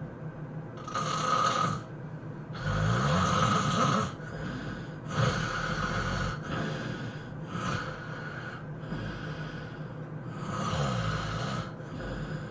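A person snoring heavily, with a loud rasping breath every second or two. The strongest breaths carry a low buzzing tone that slides in pitch.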